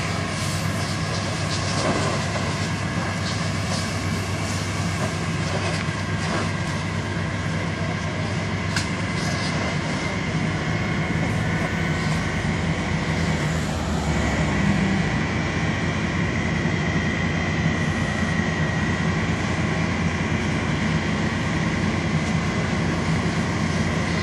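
A heavy vehicle engine running steadily with a low rumble and a few scattered knocks. A thin high whine comes in about halfway through and holds.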